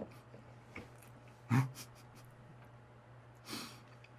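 A man sniffling and breathing hard through the nose while eating very spicy noodles: a short snort about a second and a half in and a hissing breath near the end. His nose is running from the spice.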